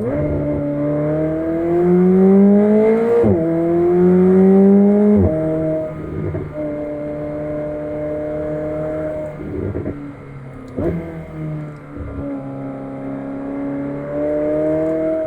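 McLaren 765LT's twin-turbo V8 accelerating hard, its pitch climbing and dropping sharply at two quick upshifts about three and five seconds in, then running at a steadier pitch with a brief lift off and back on around ten to eleven seconds.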